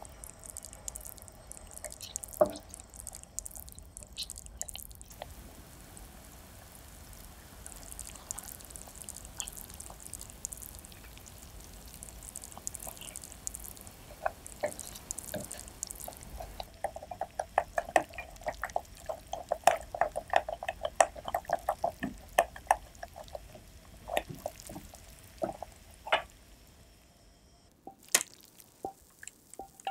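Thick cream, sugar and maltose mixture boiling in a saucepan, its bubbles popping in quick succession and busiest midway, as a silicone spatula stirs it. A few sharp clicks near the end.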